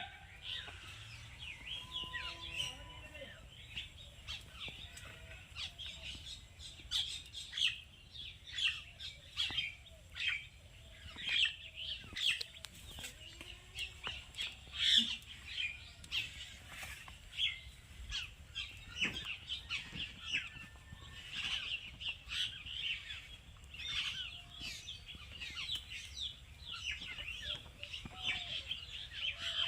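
Many small birds chirping busily, short calls overlapping and repeating throughout, with a few lower clucks from chickens near the end.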